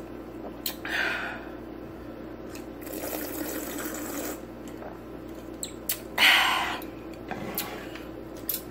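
Sipping and swallowing a drink from a glass, with gulps and small wet clicks, and a louder breathy burst about six seconds in.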